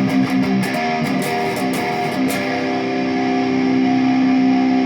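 Jackson Dinky electric guitar played through an amp with its tone knob fully open, an 823J (82 nF) capacitor on the tone control. Quick picked notes for about two seconds, then a chord held ringing.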